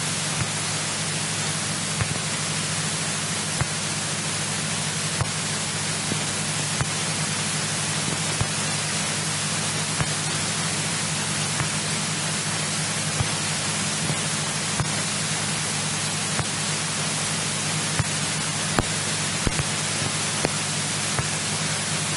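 Steady hiss of static with a low hum underneath and scattered faint clicks, on the light aircraft's radio and intercom audio feed.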